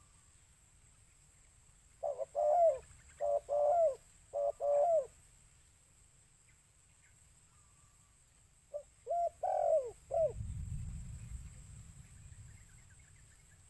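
Spotted dove cooing in two phrases: a run of three paired coo notes starting about two seconds in, then a shorter phrase about nine seconds in. A low rumble follows the second phrase.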